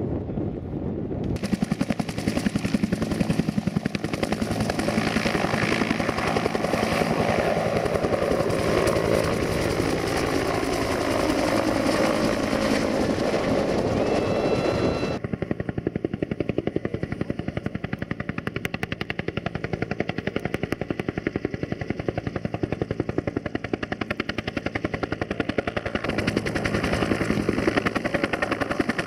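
Bell UH-1 Huey helicopter's two-bladed main rotor thumping rapidly in flight, with a turbine whine that slides down in pitch. The thumping runs on after a cut and grows louder near the end as the helicopter hovers close.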